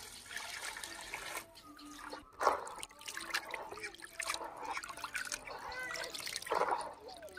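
Water poured from a small vessel into a plastic basin, then hands swishing and squeezing chopped chicken liver pieces in the water to wash them, in irregular splashes.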